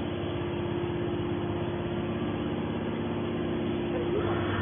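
Heavy scrap-baling machinery running steadily: a low engine drone with a constant hum over it, growing slightly louder near the end.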